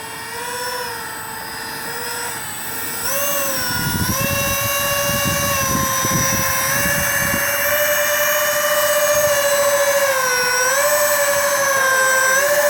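Electric ducted fans of an RC Airbus A330 airliner model whining as it taxis. The pitch steps up about three seconds in as the throttle opens to climb a slope, holds steady, dips briefly near the end and rises again.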